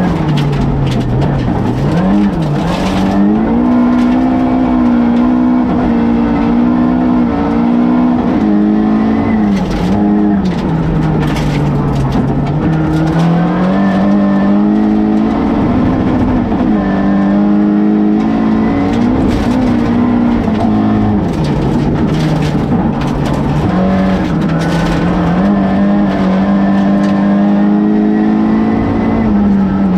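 Rally car's engine heard from inside the cockpit at full stage pace, its pitch climbing and then dropping sharply over and over through gear changes and corners. Short sharp clatters of gravel hitting the underbody cut through it again and again.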